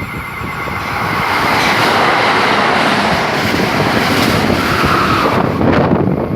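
A train passing the station at speed: a steady rushing of wheels on rails that builds over the first second and then holds.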